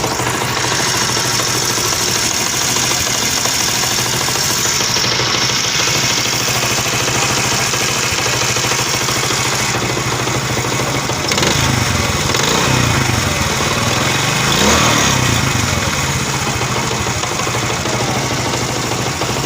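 Honda CD 70's small single-cylinder four-stroke engine running loud and rough, its note rising briefly twice past the middle. The mechanic takes the racket for a worn timing chain, connecting-rod noise and worn-out bearings.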